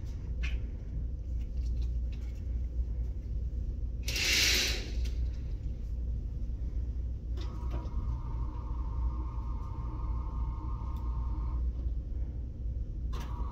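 Electric hospital bed motor running with a steady whine for about four seconds, starting a little past the middle, then starting again near the end. A brief hiss comes around four seconds in, over a low steady room hum.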